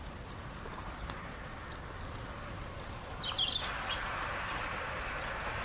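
Small birds giving a few short, high chirps over a steady background hiss. The loudest chirp comes about a second in, with a quick cluster of calls a little after three seconds.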